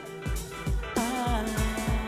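Outro music: electric guitar over a steady drum beat, with a guitar note bending about a second in.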